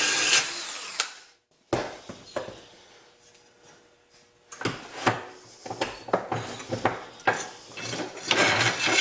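A drill-driven sharpener grinds on a steel mower blade and stops about a second in. After a short silence come irregular metal knocks and scrapes as the blade and tool are handled.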